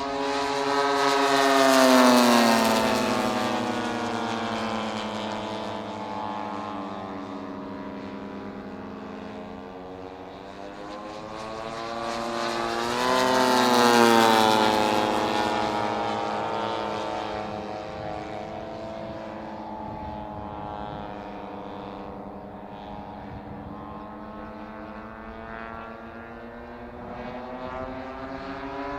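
Radio-controlled scale model Grumman F8F Bearcat flying: its propeller engine drones steadily, growing loud and dropping in pitch as it passes by about two seconds in and again about fourteen seconds in, then building again as it comes back near the end.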